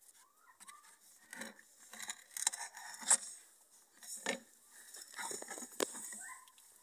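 A small plastic pipe, glued at its end, being pushed and worked into a hole in the wall of a plastic bucket: irregular scraping and rubbing with sharp plastic clicks and knocks, the loudest clicks about three, four and six seconds in.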